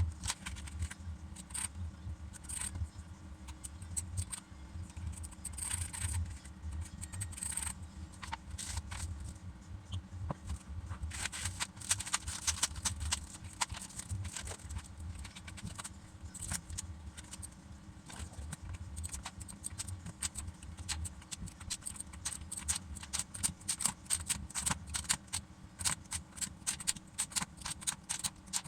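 Keycaps being pulled off and pressed onto a Razer BlackWidow X Chroma mechanical keyboard with clicky green switches: a busy, irregular run of plastic clicks and rattles, thickest near the middle and toward the end, over a steady low hum.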